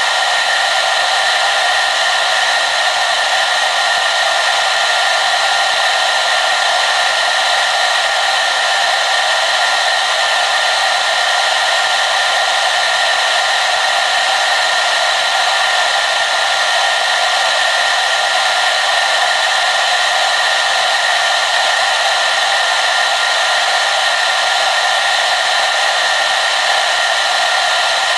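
Hair dryer running steadily, a constant rushing blow of air with a faint steady whine of its motor, no change in speed or setting.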